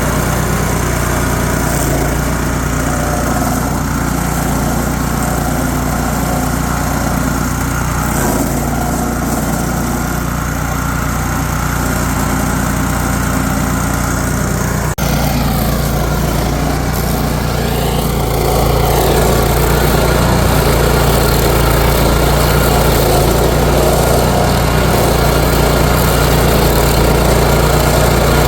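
The 13.5 hp Briggs & Stratton petrol engine of a Gitendo stump grinder running steadily at speed. After a break about halfway, it is louder and rougher.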